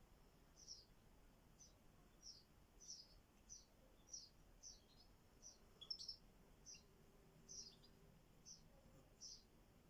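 A bird repeating a short, high, slightly falling chirp about every two-thirds of a second, faint, with one sharper call about six seconds in.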